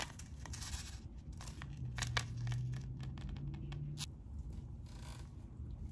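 Clear plastic zip-lock bag crinkling and crackling as it is handled and opened to take out a necklace, in short sharp bursts. A low steady hum runs under it for about two seconds in the middle.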